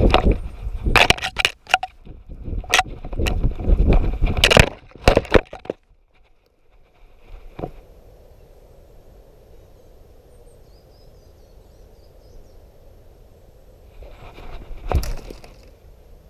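Sharp knocks and rustling from an action camera strapped to a running dog's harness as she pushes through woodland undergrowth. About six seconds in the movement stops, leaving a faint steady hush with a single knock, then a short rustle near the end.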